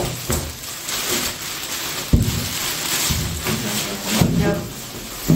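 Plastic packaging crinkling and rustling as parts are pulled out of a cardboard box, with a sharp knock about two seconds in.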